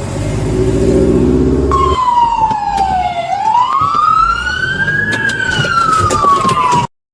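Police car siren wailing, sliding down in pitch, then up, then down again, after a vehicle engine runs for the first two seconds. The sound cuts off suddenly near the end.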